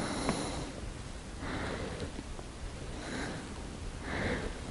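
A person breathing close to the microphone, a soft breath about every second and a half.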